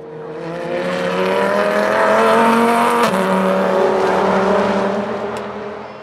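Dodge Viper GT race car's V10 accelerating hard past, its pitch climbing, then an upshift with a sharp crack about three seconds in. The engine pulls on at the lower pitch and fades as the car goes away.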